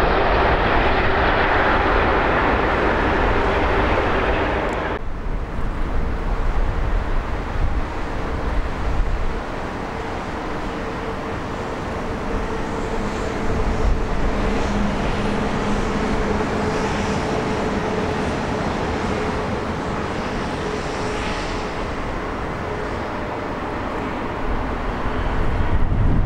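A British Airways Airbus A380's Rolls-Royce Trent 900 engines running as it taxis. About five seconds in this cuts to a twin-engine Airbus airliner's jet engines on final approach: a steady drone with a faint held engine tone.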